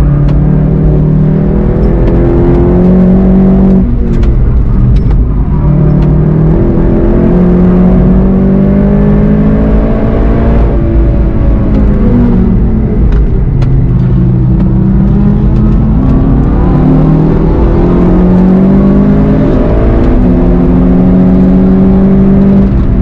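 VW Golf GTI TCR's turbocharged four-cylinder engine pulling hard under full throttle, heard from inside the car. The pitch climbs steadily and drops sharply at each upshift, several times.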